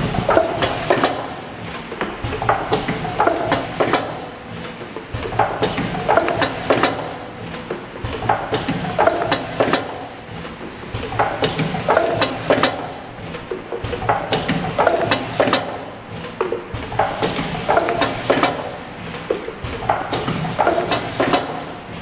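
Automatic cup filling and lidding machine running. Clusters of mechanical clicking and clattering repeat every two and a half to three seconds, one cycle per cup at about 20–25 cups a minute.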